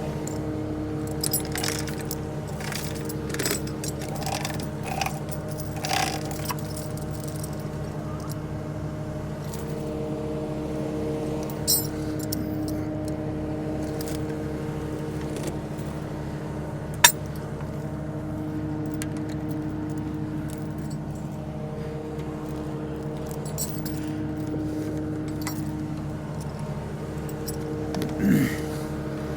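Cat 299D3 skid steer's diesel engine running steadily, with scattered metallic clinks and clanks and one sharp click about two-thirds of the way through.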